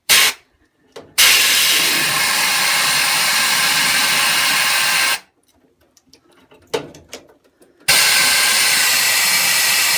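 Compressed air from an air compressor hissing through a furnace condensate trap: a short puff, then two long steady blasts of about four and three seconds with a few short bursts between. The air is blowing out sediment that has plugged the trap.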